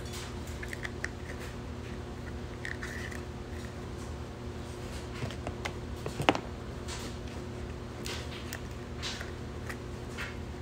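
Handling noises of a small plastic nail-gel jar and its paperboard box: scattered light clicks and short rustles, with one sharp click about six seconds in, over a steady low hum.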